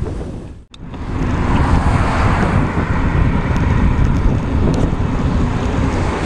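Wind buffeting a bicycle-mounted camera's microphone while riding, mixed with the running noise of road traffic. The sound drops out abruptly for a moment a little under a second in, then resumes steadily.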